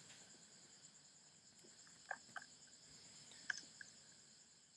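Near silence with a faint, steady high-pitched chirring of insects and a few soft clicks in the middle.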